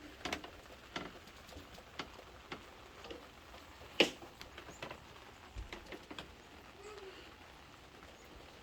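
Light, irregular clicks and taps of kitchen utensils and ingredients being handled, with one sharper knock about four seconds in.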